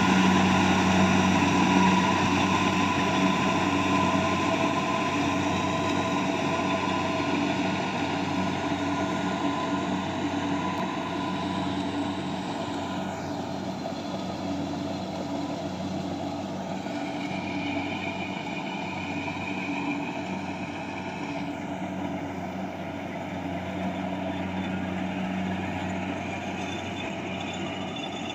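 Engine of a rice harvesting machine running steadily with an even hum, slowly getting quieter over the stretch.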